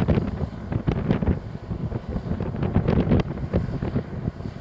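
Gusty hurricane wind buffeting the microphone in irregular, rapid thumps, with the storm surf beneath it.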